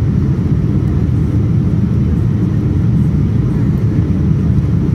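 Boeing 787-9 cabin noise in flight, heard from a window seat: a steady, loud low rumble of engines and airflow with no changes.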